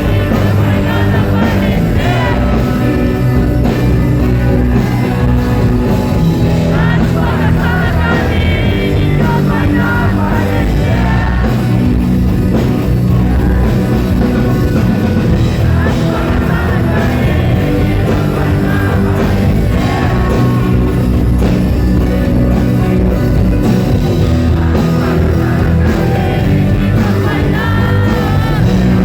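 Live rock band playing loud in a concert hall, with a singer's voice over electric guitars, bass and drums, recorded from the audience.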